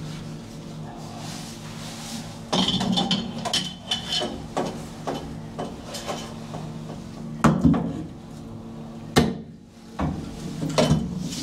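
A few sharp knocks with scraping and handling noise as a putty-coated foam stiffener is pressed and bumped into place against a fiberglass bulkhead, the loudest knocks about two-thirds of the way through, over a steady low hum.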